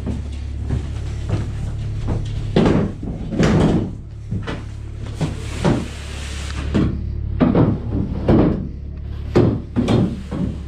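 Irregular clunks and knocks from a folding chair and gear being handled on a plywood floor, about nine in all, over a steady low hum.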